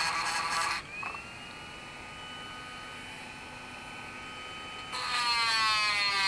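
Dremel rotary tool with a sharpening stone grinding a saw-chain cutter tooth that a rock has damaged. About a second in, the stone comes off the tooth and the tool whines freely at a steady high pitch. Near the end it bites again, with grinding and a whine that slowly drops in pitch under load.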